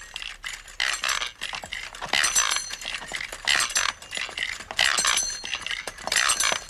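Wheeled mechanical contraption rattling and clinking as it is pushed along, the trouser-darning machine on its cart. The clatter comes in bursts about every second and a bit.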